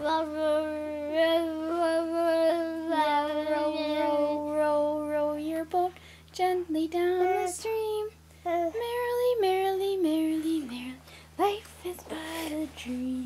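A 14-month-old toddler singing without clear words: one long wavering note held for about five seconds, then a string of short sung syllables that rise and fall in pitch.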